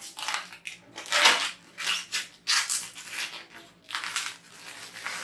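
Plastic wrapper being pulled off a computer cabinet's front panel, crinkling in a series of uneven rustles.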